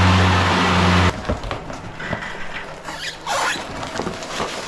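EGO Z6 zero-turn mower's electric blade motors spinning the newly fitted blades: a loud, steady hum with a rush of air, which stops abruptly about a second in. After that it is much quieter, with scattered light clicks and one short squeal a little past the middle.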